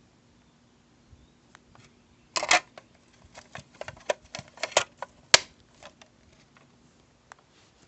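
A quick run of sharp clicks and knocks, like small hard objects being handled, starting about two and a half seconds in and lasting around three seconds, with the sharpest click a little after five seconds. A faint steady hum sits underneath.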